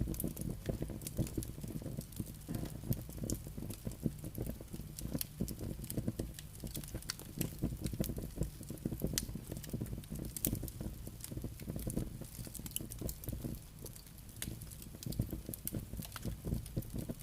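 Campfire burning, with irregular sharp crackles and pops from the burning wood over a low rumble of flame and wind.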